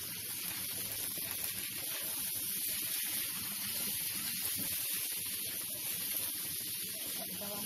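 Chicken pieces and chopped chillies stir-frying in oil in a wok, a steady sizzling hiss.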